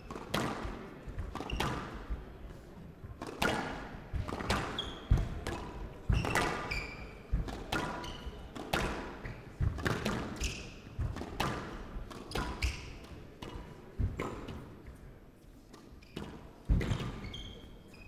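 Squash rally: the hard rubber ball is struck by rackets and smacks off the court walls about once a second, with short high squeaks of shoes on the court floor between the shots.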